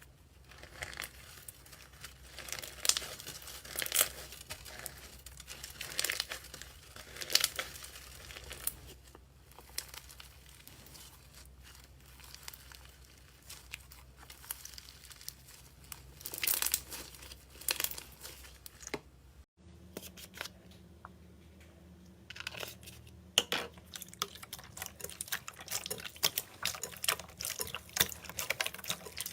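Slime being worked by hand, with irregular sticky crackles and small pops. The sound changes to a new clip about two-thirds of the way through.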